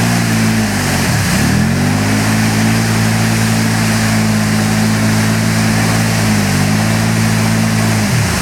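ATV engine held at high revs while pushing through deep mud. The revs drop sharply and climb back about a second in, dip slightly later on, and fall again near the end, over a steady hiss.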